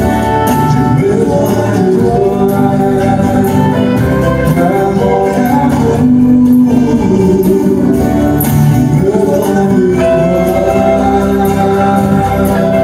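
Live country-western song: two men singing together over strummed acoustic guitars.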